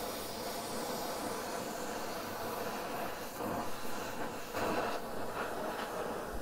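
Gas torch flame hissing steadily as it plays on a thick cast-steel motorcycle frame lug, heating it toward cherry red before bending.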